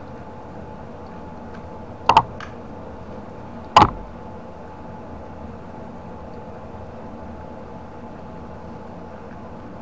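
Two short, sharp metallic clicks, about two and four seconds in, as a hex key is worked on a bolt in an electric scooter's rear swingarm, over a steady background hum.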